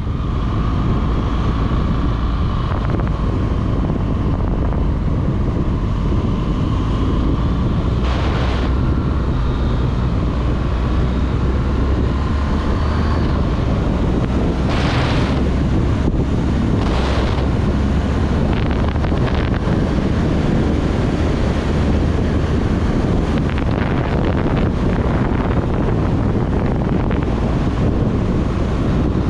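BMW R1200GS Adventure's boxer-twin engine running at road speed, with heavy wind buffeting on the microphone. A few brief louder rushes of noise come in the middle.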